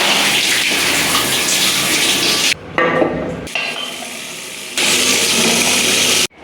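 Water running from a kitchen tap into a sink. It stops abruptly about two and a half seconds in and runs again for the last second and a half.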